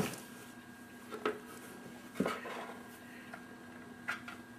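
Three short knocks against cardboard, about a second, two seconds and four seconds in, from two cats scuffling in an open cardboard box, over faint room noise.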